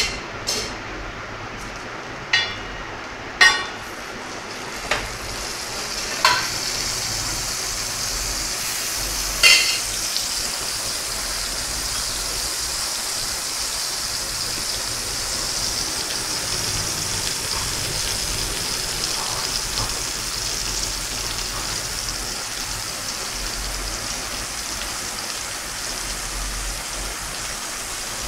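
Butter sizzling on a hot flat iron tawa, a steady hiss that sets in about six seconds in and holds. Before it, several sharp clinks and knocks of metal utensils.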